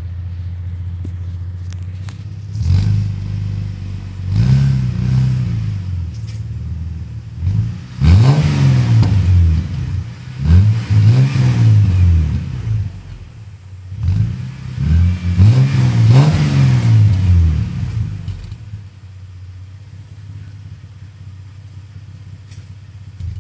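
Ford Falcon BA wagon's 4.0-litre inline-six running through a 2.5-inch sports catback exhaust: idling, then blipped in a series of short revs, mostly in pairs and threes, each rising and falling within about a second, before settling back to a steady idle.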